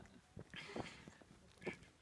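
Faint footsteps crunching and scuffing on a gravel trail, a few slow steps, the clearest one near the end.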